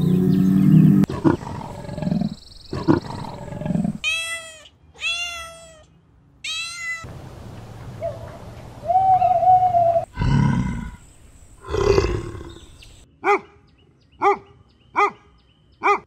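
A cow mooing low for a few seconds, then a run of owl calls: three arching cries, a thin whistle, two loud harsh calls, and four short hoots about a second apart near the end.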